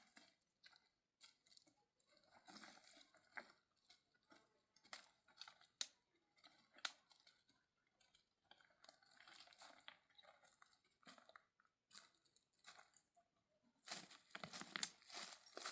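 Faint rustling and crinkling with scattered small sharp clicks, growing louder and busier near the end.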